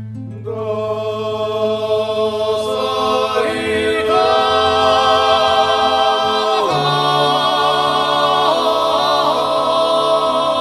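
Music with choral singing: long held chords over a steady low drone, which steps to a new pitch about two-thirds of the way through.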